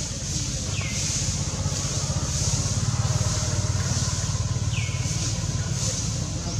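Steady low rumble like a running engine, with a high hiss that swells and fades and a short falling chirp repeated every few seconds.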